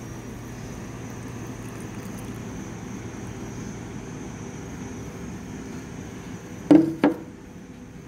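A blender jug knocked twice against a steel bowl near the end, two sharp strokes close together, over a steady low hum.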